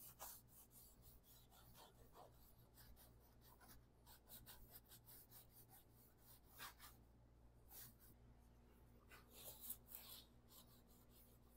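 Faint rubbing of a stain rag wiped over rough wooden posts and beams, a quick, uneven series of short scrubbing swishes, a little louder near the end.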